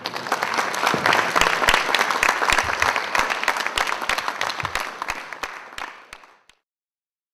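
Audience applauding. It builds over the first second or so, thins to a few scattered claps, then cuts off suddenly near the end.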